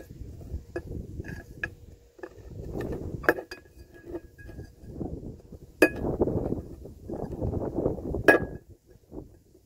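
Hand scraping and sanding of oxidised metal parts of a well submersible pump to clean off corrosion: repeated scraping strokes of a second or so, with several sharp metallic clinks, the loudest about six and eight seconds in.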